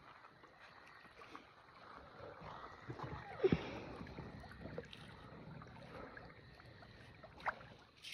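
Shallow water sloshing and splashing as a person wades barefoot through it, with one louder thump about halfway through and a brief sharp sound near the end.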